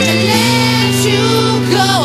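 A song playing: a singing voice over held instrumental chords.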